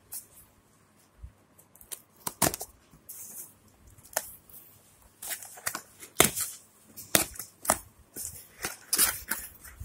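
A cardboard parcel being cut open with a knife: the blade scraping and slitting through packing tape and cardboard, with sharp taps and knocks as the box is handled. Irregular and scratchy, busier in the second half.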